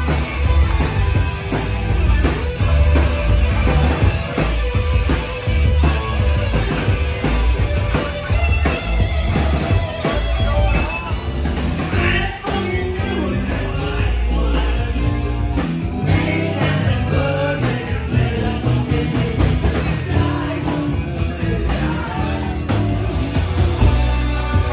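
Live rock band playing: electric guitar, keyboard and drum kit with vocals, heard from the dance floor amid the crowd.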